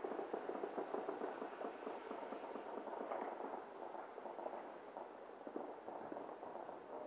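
Distant New Year's fireworks and firecrackers going off in a dense, continuous crackle of rapid pops, somewhat louder in the first second and again about three seconds in.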